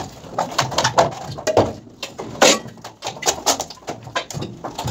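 Irregular sharp knocks and clanks from wall formwork being stripped by hand: a hammer striking the steel clamps and timber walers. The loudest blow comes about two and a half seconds in.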